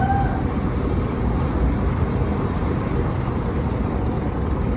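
Boat under way on open water: a steady motor rumble mixed with water and wind noise.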